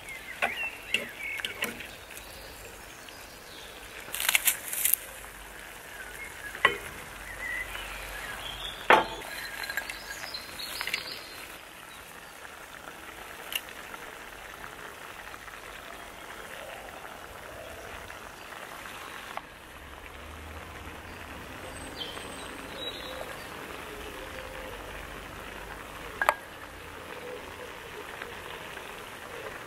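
A few sharp clinks of a metal fork and dishes against a clay tagine as food is turned and laid in it, spread out with long gaps, over a faint steady sizzle of the tagine cooking on a charcoal brazier.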